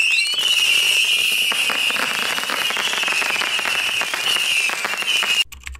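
Fireworks going off: dense crackling under a high, steady whistle. It all cuts off suddenly near the end.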